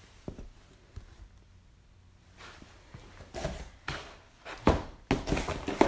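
Rustling and scraping of cardboard and wood as a heavy cardboard-wrapped pack of wooden gunwale strips is shifted, with a sharp knock near the end. The first couple of seconds are nearly quiet.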